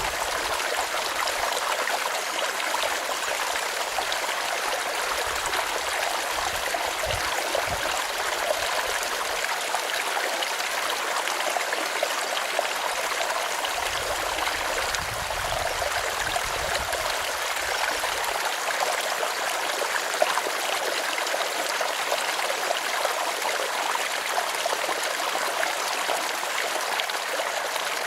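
A small stream running steadily over rocks, a continuous rushing trickle of water, with a few faint low rumbles now and then.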